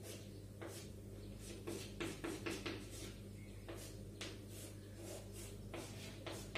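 Chalk writing on a chalkboard: irregular short scratches and taps as lines and letters are drawn, over a steady low hum.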